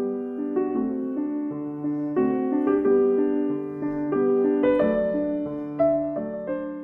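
Intro music played on piano or electric piano: a soft, gentle keyboard melody with chords, note following note at an unhurried pace, fading toward the end.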